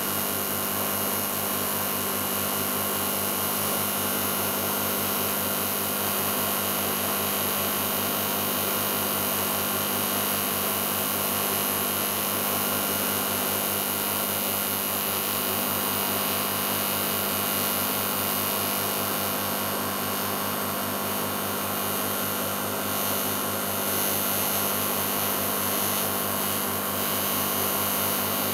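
TIG welding arc burning continuously: a steady hiss with a constant hum, unbroken throughout.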